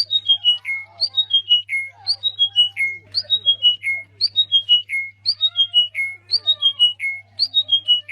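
A high, bird-like call repeated about once a second with machine-like regularity: each phrase is a short rising note followed by four quick notes stepping down in pitch. A steady low hum runs underneath, and fainter wavering sounds sit lower down.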